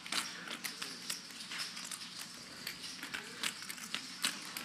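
Poker chips clicking against each other as they are handled at the table: a light, irregular clatter of sharp clicks, several a second.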